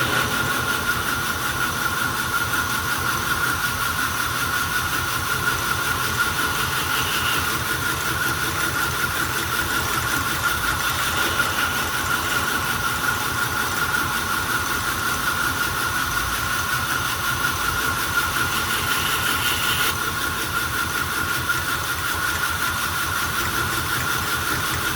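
Belt grinder running steadily with a high whine over a hiss, as a knife blade's bevel is ground freehand against a fine-grit abrasive belt. A few brief, brighter hissing passes are heard where the steel bears on the belt.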